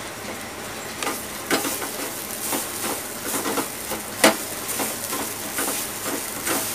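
Wooden spatula stirring and scraping grated coconut as it fries in ghee in a pan: irregular scrapes about once or twice a second over a faint sizzle, with one sharper knock about four seconds in.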